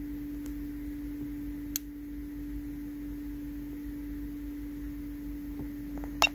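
A steady low hum under faint hiss, with one sharp click about two seconds in and two quick clicks near the end from the handheld OBD-II scanner's keypad buttons being pressed.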